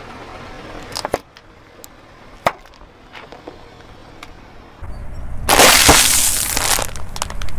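Car tyre crushing small plastic bottles, with sharp cracks about a second in and again at two and a half seconds. From about five and a half seconds, a loud crunching that lasts a little over a second as a tyre rolls onto a small crunchy object, followed by a few sharp cracks near the end.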